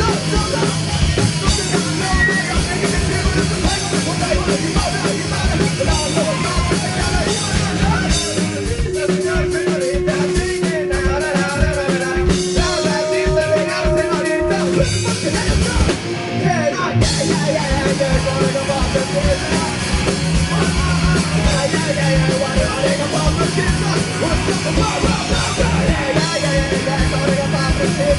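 Live rock band playing a song with heavily distorted, grinding guitars, drums and vocals. There is a short break about halfway through.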